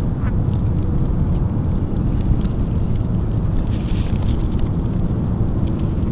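Wind buffeting the microphone in an open field, a steady low rumble.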